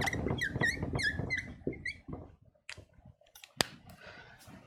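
Dry-erase marker squeaking across a whiteboard in a quick run of short strokes as a word is written. It is followed by a few faint taps and one sharp click about three and a half seconds in.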